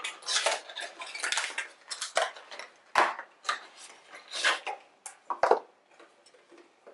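Cardboard packaging and a moulded plastic tray being handled as neckband earphones are unboxed: irregular rustling and scraping as the box is opened and the earphones are pulled from the tray, with a sharp click about three seconds in.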